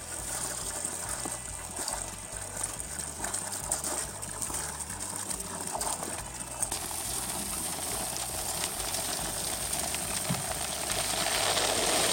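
A stream of water pouring and splashing steadily into a half-full rubber tub, growing louder near the end.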